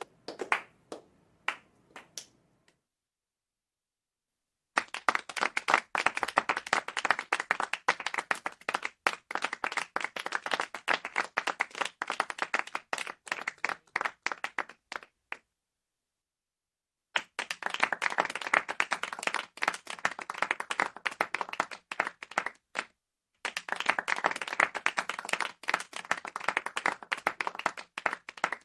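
A small crowd applauding in short, sparse runs. A few single claps die out near the start, and after a short silence three runs of clapping follow, each cut off by a brief gap of silence.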